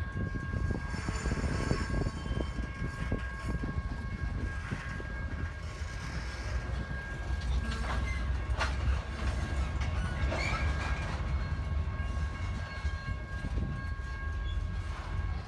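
Train rolling past: a steady low rumble of railcars with scattered clicks of wheels over the rail joints, and a faint, steady, high-pitched whine held throughout.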